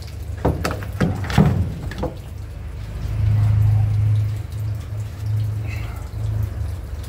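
A few knocks and clatters as a red-handled axe is hung on a hook on a wooden post, in the first two seconds. Then a steady low hum swells up about three seconds in and rises and falls a few times.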